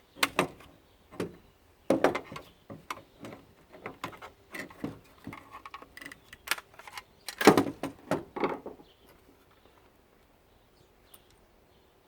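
Plastic housing of a steam iron being pried apart at its snap clips: a run of clicks, snaps and knocks, loudest about two seconds in and again around seven and a half seconds, stopping about nine seconds in.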